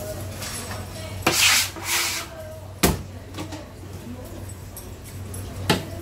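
Work at a fish-cutting table: a brief rushing hiss, then two sharp knocks about three seconds apart as things are set down on a plastic cutting board, over a steady low hum.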